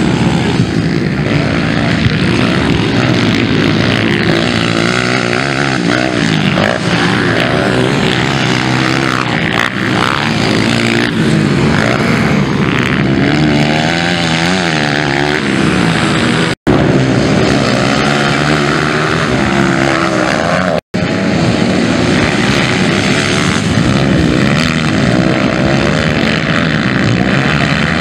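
Several 230 cc motocross bikes racing, their engines revving up and down in pitch continuously as they ride the dirt track. The sound cuts out for an instant twice, about two-thirds of the way in.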